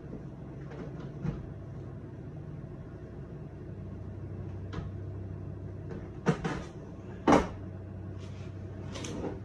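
Kitchen clatter of cookware being handled on the stove: a few short knocks, the two loudest about six and seven seconds in, with a few more near the end, over a steady low hum.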